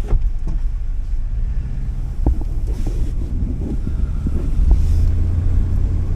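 Vehicle driving slowly, its engine and road rumble heard from inside the cabin, with scattered light clicks and knocks.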